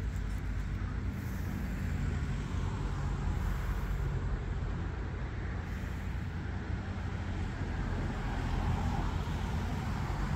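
Steady low rumble and hiss of road traffic.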